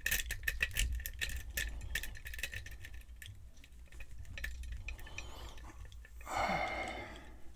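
Lock pick clicking and scraping against the pins in the keyway of a brass Yale pin-tumbler cylinder: rapid small metallic clicks, thick for the first three seconds, then sparser. A short rushing noise comes about six and a half seconds in.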